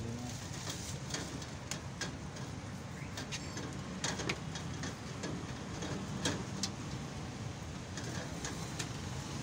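Street background noise: a steady low hum like traffic or an engine, with scattered light clicks and taps.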